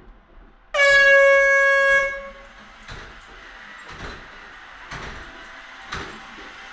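A loud, held horn-like tone lasting about a second, then a Roomba i7 robot vacuum running with a steady whir, broken by soft knocks about once a second.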